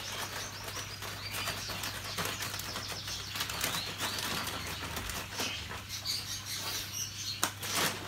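A sack of canary seed mix rustling and crackling as hands rummage inside it, with cage birds chirping faintly and a low steady hum underneath.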